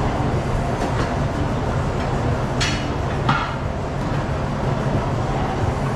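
Steady low mechanical hum at a tire-changer machine, with two short hissing scrapes a little past the middle as a tire is worked on the machine.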